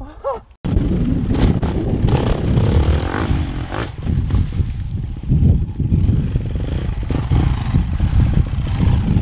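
350 cc motocross bike's engine revving and easing off as it is ridden over rocks and logs, with knocks and clatter from the bike over the obstacles. It starts suddenly about half a second in.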